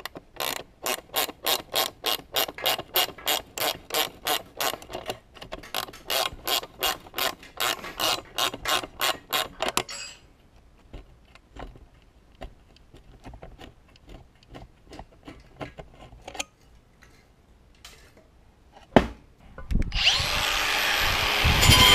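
Socket ratchet wrench clicking in quick back-and-forth strokes, about two or three a second, unbolting a tractor seat bracket, followed by softer scattered ticks and clinks of metal parts being handled. Near the end there is a thump, then a loud steady hiss.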